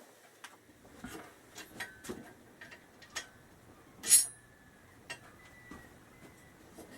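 Metal tools and parts clicking and clinking as the factory top rack is unbolted and lifted off the motorcycle, with one loud, sharp, ringing metallic clink about four seconds in.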